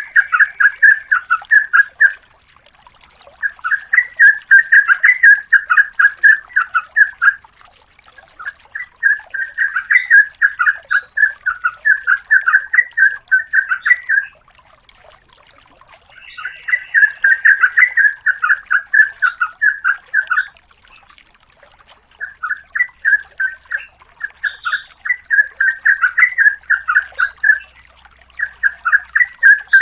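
Yellow-vented bulbul (trucukan) singing long, rapid runs of bubbling notes, several notes a second, in bouts of about four to six seconds with short pauses between.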